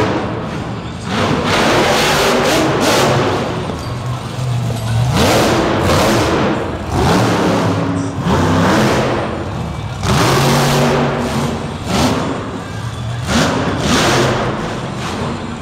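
Monster truck's supercharged V8 revving hard in repeated surges, rising and falling about every one to two seconds, with music playing over it.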